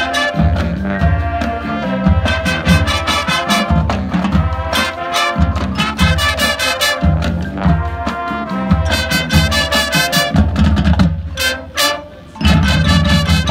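Marching band playing: brass over mallet percussion and a steady pounding low beat. About twelve seconds in the music drops away briefly, then comes back loud for the closing bars.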